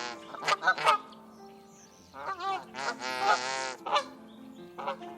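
Canada goose honking: a few short honks, then a run of honks and a longer drawn-out call, then more short honks near the end.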